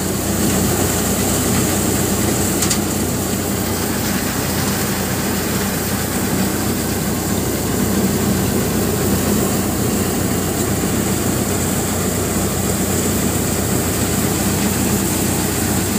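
Motorised mustard thresher running steadily under load, threshing mustard: a constant machine hum with a broad hiss over it.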